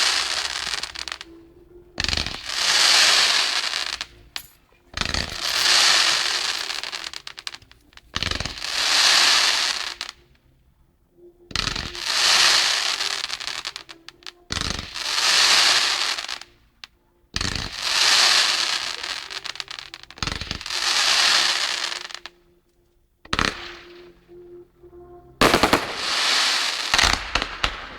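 Aerial firework shells bursting about every three seconds, each sharp bang followed by about two seconds of dense crackling as the crackle stars go off. Near the end the bangs come in quicker, rapid pops.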